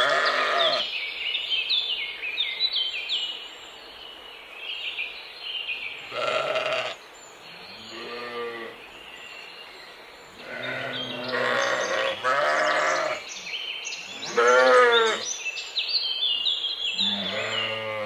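Sheep bleating: about seven separate, wavering calls of around a second each, with birds chirping steadily in the background.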